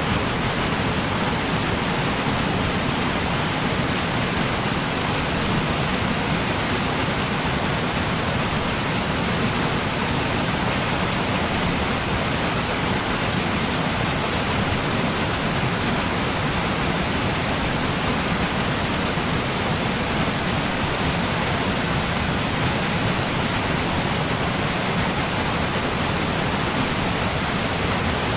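Large waterfall: a steady, loud rush of falling water, even and unbroken.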